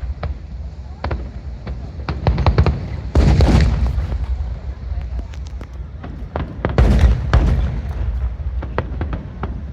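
Fireworks display: aerial shells bursting with deep booms and crackling reports. The two biggest bursts come about three and seven seconds in, with smaller pops and crackles in between.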